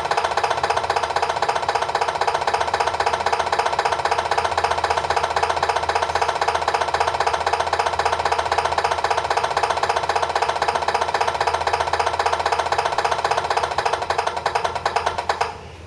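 Alan Bond's diesel engine sound module in a Tamiya 1/14 Scania R620 RC truck, playing a simulated diesel idle through the truck's small speaker: a steady, fast, even pulse, thin with little bass. It cuts off abruptly near the end as the sound module is switched off.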